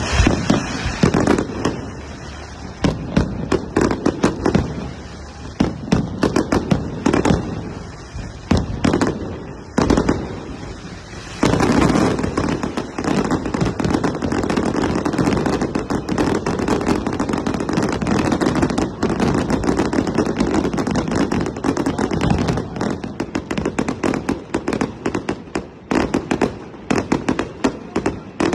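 Fireworks display: a rapid, irregular string of bangs and crackling. About halfway through it becomes a louder, nearly continuous crackle.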